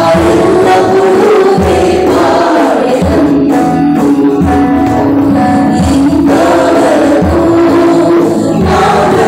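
A small group of female and male voices singing a worship song together through microphones and a PA, over a steady low beat.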